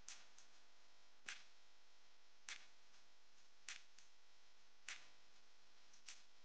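Near silence with faint, sharp ticks at an even pace, six in all, a little over a second apart.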